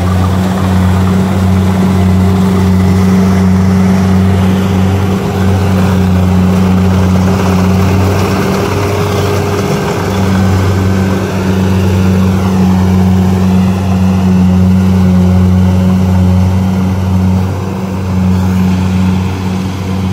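Rice combine harvester's diesel engine running steadily under load while cutting, a loud, low, even drone that holds the same level throughout.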